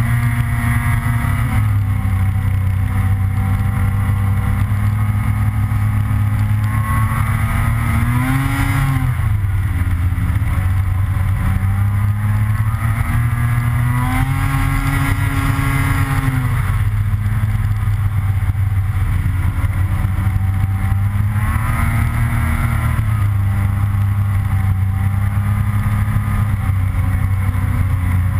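Snowmobile engine running at trail speed, its pitch climbing and then dropping as the rider accelerates: about a quarter of the way in, again around the middle, and more briefly about three-quarters through.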